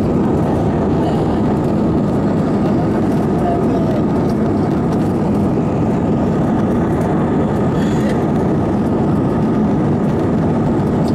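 Airbus A319-132 cabin noise during the climb after takeoff: the steady noise of the IAE V2500 turbofans and the airflow over the fuselage, heard inside the cabin by the wing.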